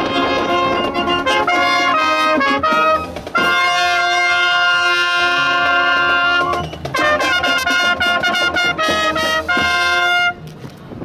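School marching band playing, brass-led with saxophones and drums: short punchy chords, then a long held chord from about three to six and a half seconds in, then more short chords. The music stops abruptly about ten seconds in.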